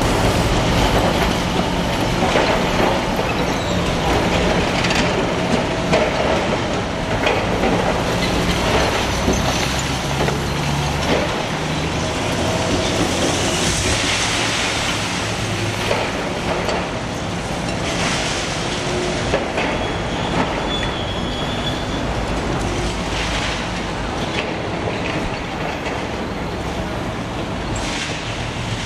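Liebherr R 954 demolition excavator's diesel engine running steadily while its hydraulic crusher jaws break up reinforced concrete, with repeated crunches and cracks. About halfway through, a rush of rubble pours down, and near the end there is a brief metallic squeal.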